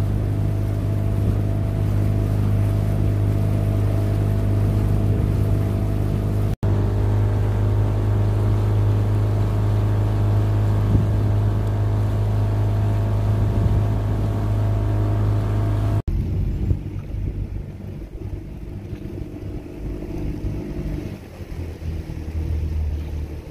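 Small motorboat's engine running at a steady low drone. After a cut about two-thirds of the way through, it gives way to a quieter, uneven low rumble.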